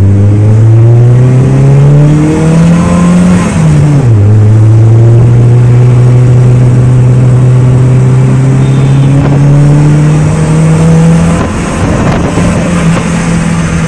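Turbocharged Mitsubishi Cedia's engine under hard acceleration, heard from inside the cabin: the revs climb, drop sharply at a gear change about four seconds in, then climb steadily again before levelling off near the end.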